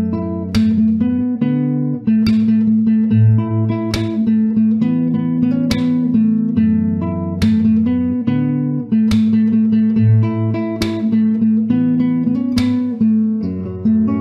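Background instrumental music: a plucked string instrument, guitar-like, plays a melody, with a sharp accent roughly every two seconds.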